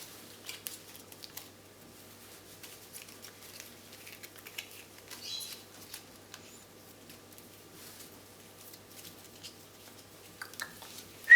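Faint scattered clicks and light scratching and rustling as the African grey parrot handles the number cards, with a brief high chirp about five seconds in.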